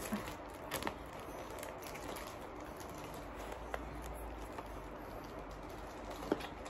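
Quiet room with a steady low hum, and a few faint clicks and rustles as a phone box and its plastic wrapping are handled.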